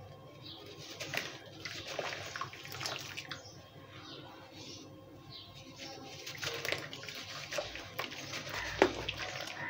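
Hands crushing and crumbling lumps of wet sand in a basin of water: splashing and sloshing with many small crackly crunches as the sand breaks up, and one sharper splash near the end.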